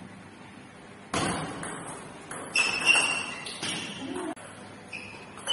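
Table tennis point ending: the celluloid ball clicking on bats and table, then voices reacting in the hall, with a sudden loud outburst about a second in.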